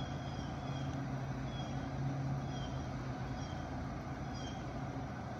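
A steady low mechanical hum, with faint short high chirps repeating about once a second.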